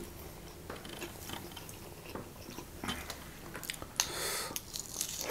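Close-up eating sounds of people eating rice and curry with their hands: soft chewing with scattered small mouth and finger clicks, and a short rustling noise about four seconds in.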